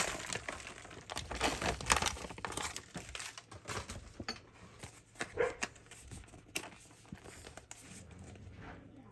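Packaging crinkling and rustling as chopped pecans are emptied into the mixture, with irregular light clicks and rustles that are busiest in the first few seconds and thin out after.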